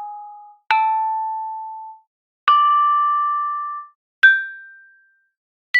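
Sampled tuned bronze Balinese gamelan percussion from Native Instruments' Discovery Series Balinese Gamelan library, struck one note at a time in a rising sequence. Four strikes, each ringing for about a second or more and then stopping before the next, each higher than the last, the final one sounding right at the end.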